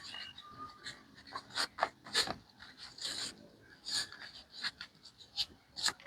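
Irregular rustling, crinkling and scraping of a tamale wrapping leaf being handled as masa is spread onto it by hand.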